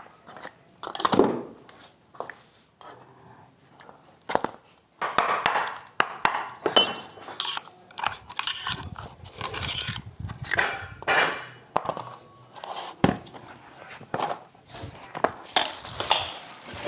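Metal hand tools and parts clinking and clattering, with irregular knocks and scrapes that come thicker after the first few seconds.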